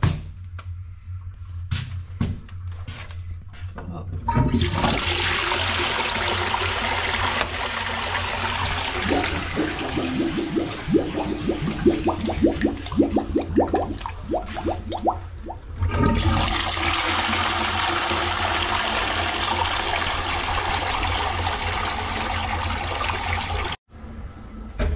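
Two toilets flushed one after the other. The first rush of water into the bowl lasts about eleven seconds and ends in gurgling as the bowl empties. The second flush follows straight on and cuts off sharply near the end.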